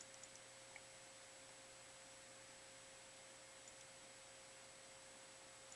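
Near silence: room tone with a faint steady electrical hum and a few faint, soft clicks.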